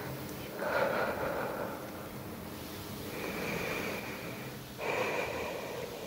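A person breathing heavily: three long, rushing breaths about two seconds apart.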